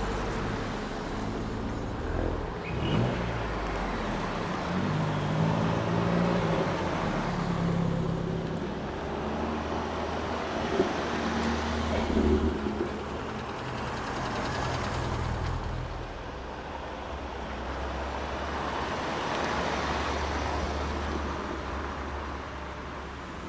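Ford performance cars driving past one after another at low speed, engines running at low revs with a few brief revs as they pull away. A Focus RS hatchback passes at the start and another drives off near the end.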